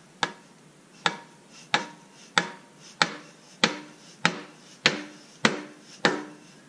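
Hammer tapping the end of a length of exhaust pipe used as a seal driver, driving a new output seal into a Jeep Wrangler's transfer case. Eleven even strikes, about three every two seconds, each with a short metallic ring from the pipe.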